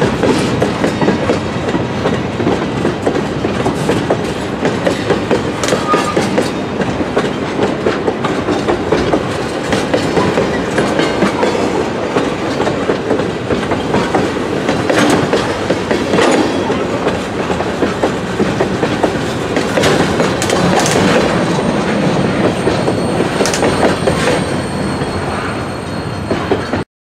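Tank cars of a freight train rolling slowly past, their steel wheels clicking in an uneven rhythm over rail joints, with a thin high wheel squeal joining in near the end. The sound cuts off suddenly just before the end.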